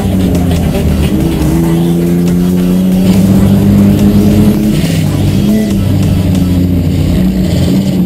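Race car's engine heard from inside its own cabin, running hard under load, its note dropping and climbing again as the driver lifts and gets back on the throttle around the track.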